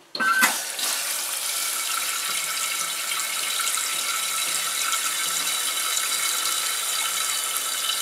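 Newly installed Fluidmaster PerforMax toilet fill valve hissing steadily as water rushes in to refill the empty tank. It starts suddenly with a brief squeal just after the start, as the supply shutoff valve is opened.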